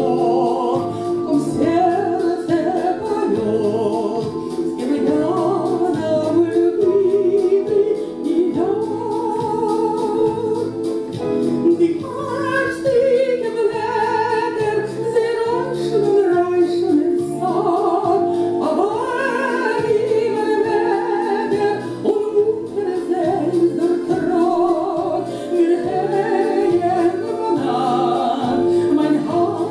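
A woman singing a song with piano accompaniment, her voice carrying long held notes over a steady piano pattern.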